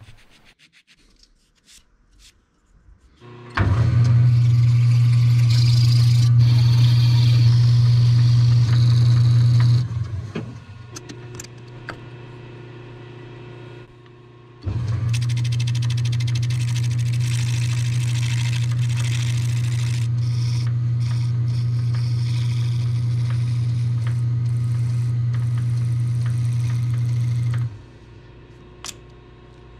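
Metal lathe running with a steady motor hum while a tool cuts a wooden pattern block, with a hiss from the cut. It starts a few seconds in and stops after about six seconds. After a weaker stretch it runs again for about thirteen seconds and switches off near the end.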